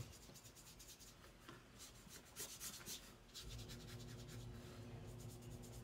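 Faint strokes of a watercolour brush rubbing across paper as a thin wash of skin-coloured paint is spread out, grouped in the middle seconds. A low steady hum comes in about halfway through.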